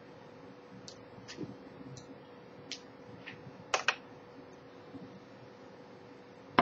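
Scattered faint clicks and ticks over a low steady hum, with a sharper double click about four seconds in.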